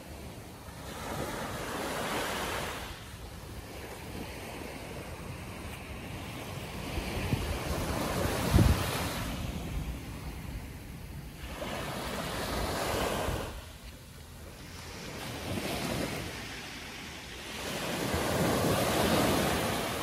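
Small Caribbean surf washing up the sand and drawing back, swelling and fading about five times. Wind buffets the microphone, with a low thump about halfway through.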